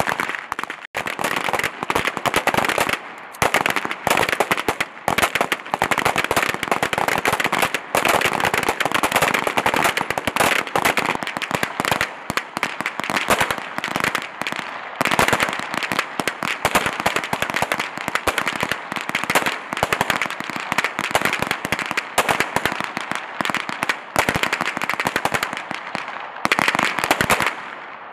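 Many pistols firing at once along a firing line: a continuous, dense crackle of overlapping gunshots with no real pause.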